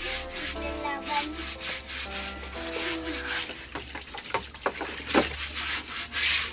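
Two people scrubbing a mattress by hand, brisk rubbing strokes repeating a few times a second. A tune plays underneath for the first half, and the strokes grow sharper after that.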